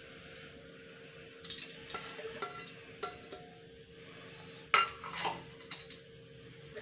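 Stainless-steel mixer-grinder jar and steel plate clinking and knocking while ingredients are put into the jar. Scattered light clinks with a brief metallic ring come first, then a sharper knock a little under five seconds in, followed by two smaller ones.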